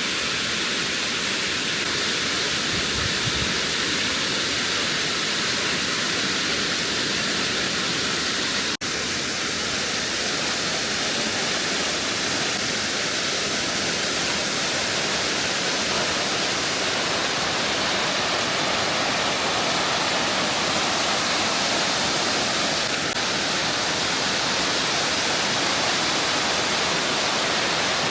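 Large waterfall's steady rush of falling water, with a momentary break about nine seconds in.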